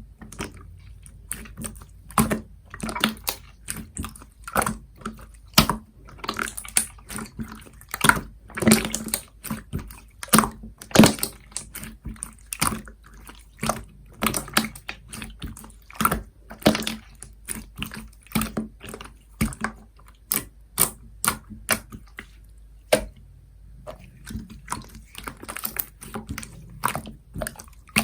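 Slime being pressed, stretched and folded by hand, giving irregular sharp clicks and pops of trapped air, several a second, with a brief pause about three-quarters of the way through.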